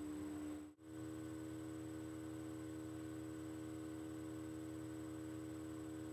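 Steady electrical hum made of several constant tones, the strongest a mid-low drone, with faint hiss underneath. It cuts out for an instant just under a second in, then resumes unchanged.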